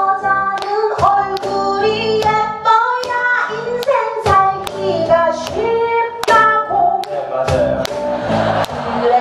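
A woman singing live into a microphone over a strummed acoustic guitar and bass, with sharp rhythmic strokes marking the beat.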